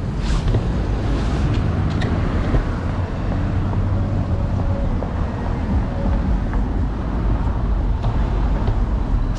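City street traffic noise heard from a moving electric scooter, a steady low rumble with passing cars.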